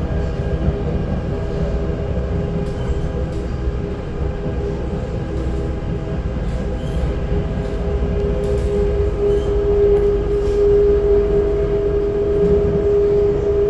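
Interior sound of an SMRT C751B metro train running between stations: a steady rumble with a level whine that grows louder about halfway through, and faint clicks now and then.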